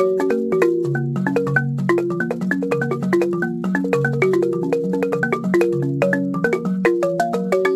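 Siamou balafon, a West African wooden-keyed xylophone, played with mallets: a fast, steady stream of struck wooden notes at several pitches, low and middle notes overlapping in a repeating melodic pattern.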